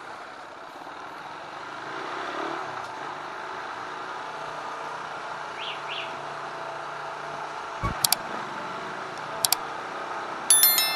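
Motorcycle riding at low speed with steady engine and road noise. A couple of sharp paired clicks come about eight and nine and a half seconds in, and a short bright high-pitched ringing near the end.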